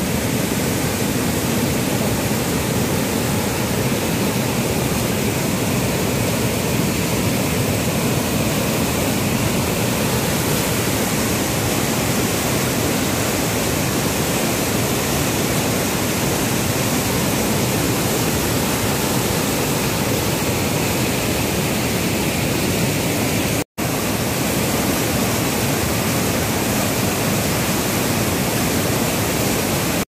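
A waterfall's white water pouring and cascading down a rock slope close by, a steady, loud rush. The sound breaks off for an instant about three-quarters of the way through.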